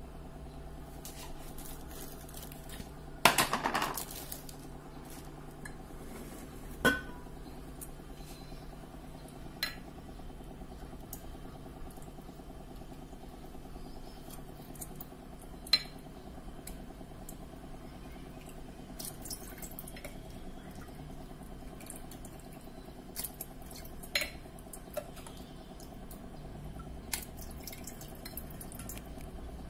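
A stainless steel ladle clinking and knocking against a glass jar and bowl every few seconds while fermented watermelon pulp is scooped out to strain the wine, with a louder clatter about three seconds in. A steady low hum runs underneath.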